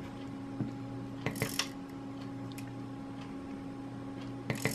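Micro R/C servo throwing a model railway turnout through a wire linkage: a brief whirr with clicks about a second in, then again near the end as it throws the points back. A steady low hum runs underneath.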